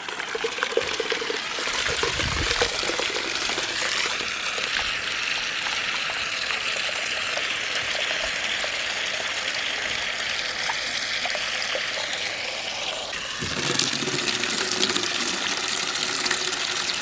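Water from a garden hose running steadily and splashing into a container as it fills; the splashing changes character about three-quarters of the way through.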